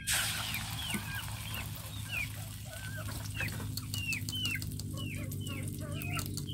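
Beaten egg poured into hot oil in a wok, starting a sudden sizzle that crackles on as it fries. Over it, chickens cluck again and again in short falling calls.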